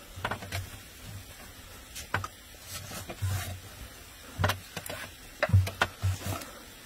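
Fabric tablecloth being spread over a wooden table and smoothed and patted down by hand: a dozen or so irregular soft knocks and rustles, loudest near the end.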